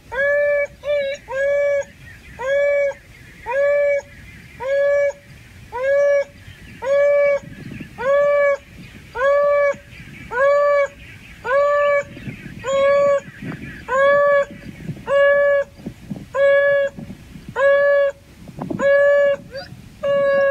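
African wild dog (painted wolf) calling over and over, about once a second, each call a short hooting note that rises at the start and then holds steady.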